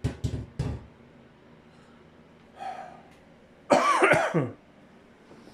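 A man coughing: a few short coughs at the start and a louder, harsher cough about four seconds in.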